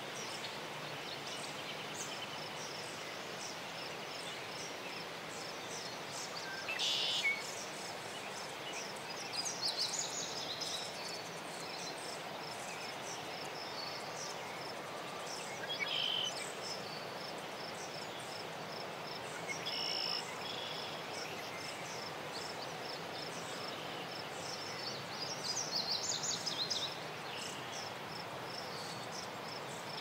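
Meadow ambience: insects trilling steadily in a fine, high, even pulse, with five short bird calls spaced several seconds apart, the loudest about seven seconds in.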